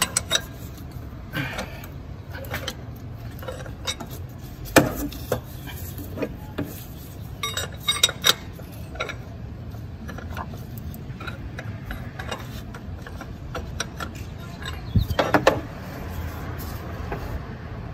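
Scattered metallic clinks and knocks of tools and metal parts as a seized A/C compressor is worked loose from its engine mount. There is one sharper knock about five seconds in and a quick cluster of knocks near the end.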